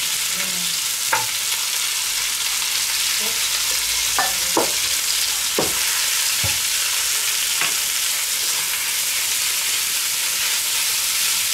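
Pieces of meat sizzling as they sear in hot oil in a cast-iron Dutch oven, stirred with a wooden spatula that knocks against the pot a few times.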